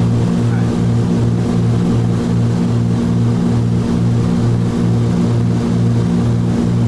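Cabin noise of a Cessna T303 Crusader in cruise: its twin turbocharged six-cylinder piston engines and propellers drone steadily inside the cockpit. The drone swells and fades about twice a second, the beat of two engines not quite in sync.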